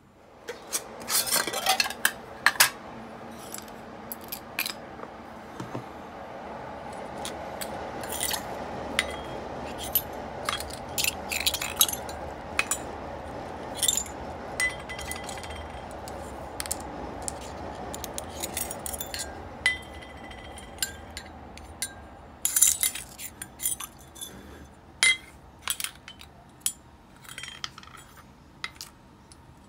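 Small metal parts from an Ambassadeur 5500C baitcasting reel clinking and scraping against steel parts cups and a glass jar, in many sharp irregular clicks. Under them runs a steady swishing while the parts are worked in cleaning liquid in the jar; it fades out a little after twenty seconds.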